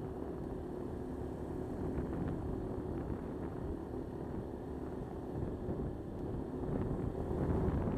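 Motor scooter engine running steadily while riding, with wind rushing over a helmet-mounted microphone. The wind noise grows louder near the end.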